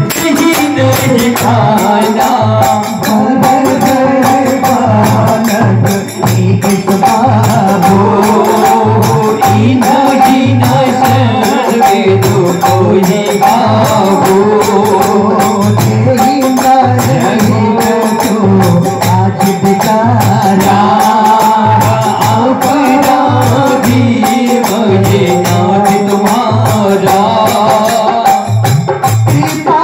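Live Indian devotional folk music: singing over a harmonium, with a dholak drum beating a steady rhythm and jingling percussion keeping time.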